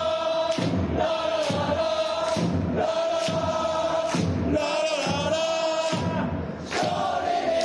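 A large crowd of football supporters singing a chant together after a win, in long held notes over regular beats about once a second. The singing dips briefly near the end, then picks up again.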